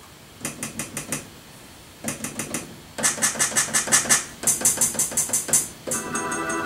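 Electronic instrument sounds from Reason 10, played by fingers on Ableton Push 2 pads: four bursts of fast repeated notes, about six a second, then a sustained keyboard-like chord held near the end.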